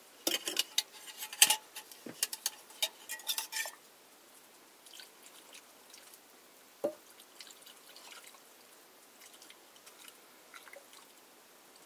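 Metal spoon and cooking pots clinking and scraping in quick clicks for the first few seconds. Then it goes quieter: white liquid is poured from a small pot into a pot of potatoes, with scattered small ticks and one knock about seven seconds in.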